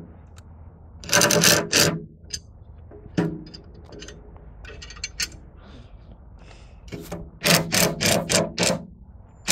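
Cordless power driver run in short trigger bursts, tightening the Allen bolts into locking nuts on a steel bracket: one longer run about a second in, a brief one at about three seconds, and a quick string of about six blips near the end.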